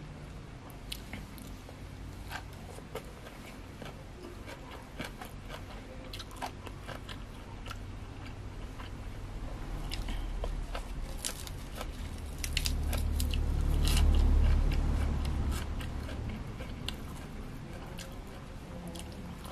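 Close-up eating sounds: a person crunching and chewing raw vegetables and spicy papaya-style salad, with many sharp little clicks of biting and handling. A louder low rumble swells for a few seconds about two-thirds of the way through.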